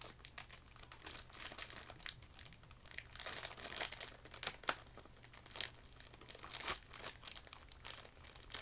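Thin clear plastic bag crinkling and crackling in irregular bursts as fingers pick at its top, trying to get it open.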